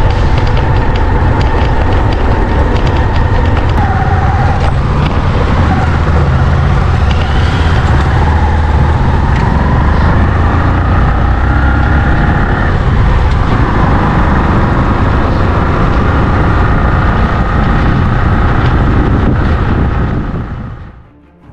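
Motorcycle engine running while riding, its note slowly rising and falling with the throttle, under a heavy rumble of wind on the microphone. It fades out near the end.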